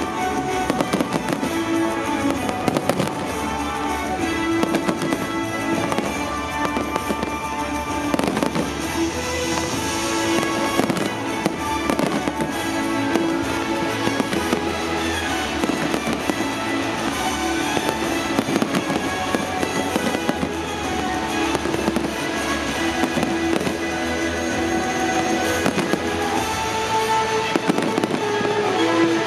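Aerial fireworks bursting in a dense, continual string of bangs, heard over music with sustained tones.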